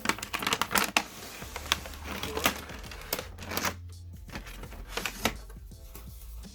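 A cardboard box and its packaging being handled and opened: a quick run of clicks, knocks and crinkling rustles, busiest in the first few seconds.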